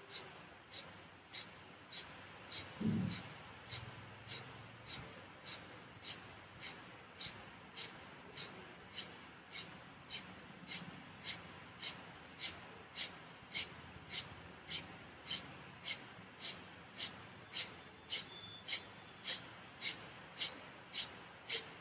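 Kapalbhati pranayama: a man's short, forceful exhalations through the nose, repeated at a steady normal pace of about three every two seconds. A brief low sound comes about three seconds in.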